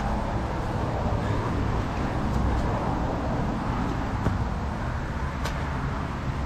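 A few sharp slaps of hands and shoes on an asphalt driveway during burpees, the clearest about five and a half seconds in, over a steady low outdoor rumble.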